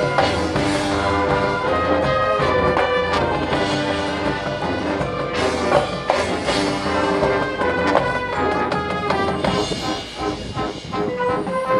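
Marching band playing, the brass section sounding held chords over struck percussion hits.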